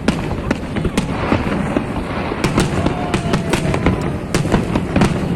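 Fireworks and firecrackers going off in a dense, continuous crackle of sharp bangs and pops, with a faint whistle about three seconds in.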